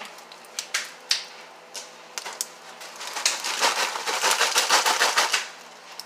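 Paper microwave bag crinkling with the puffed pork rinds rustling and crackling inside it as it is handled: scattered crackles at first, then a dense stretch of crinkling from about three seconds in for roughly two seconds.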